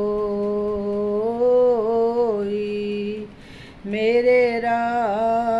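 A woman singing a Hindi devotional song with no accompaniment, drawing out one long note with a small melodic turn in it. About three seconds in she breaks briefly for breath, then holds the next note.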